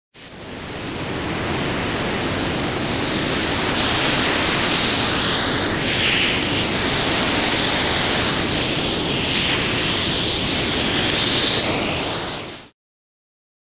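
Steady rushing noise, like static, with a hiss that slowly shifts in colour, rising quickly at the start and cutting off abruptly near the end.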